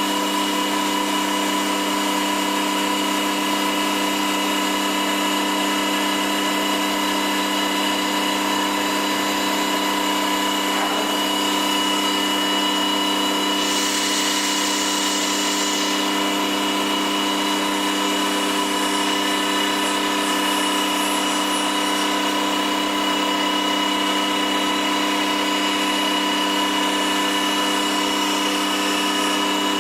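NC woodworking machine's spindle running at constant speed with a woodworking cutter, a steady whine made of several fixed tones. About halfway through, a short hiss lasts about two seconds.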